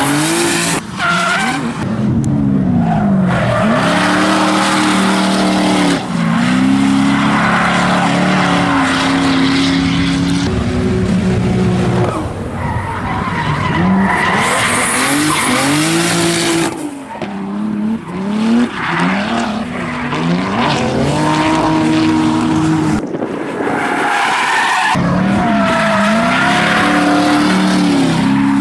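Drift cars sliding with the throttle worked hard: engines revving up and down over and over while the rear tyres squeal and hiss in wheelspin. The sound breaks off abruptly several times as one run gives way to the next.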